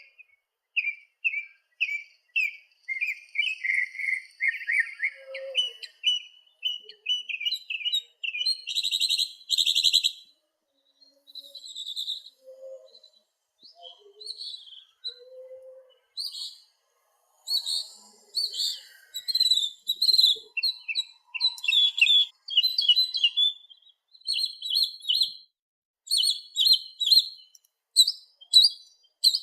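Songbirds chirping in short repeated calls: a steady run of chirps first, a brief buzzy trill about a third of the way in, a sparser spell, then quicker, higher-pitched chirping through the second half.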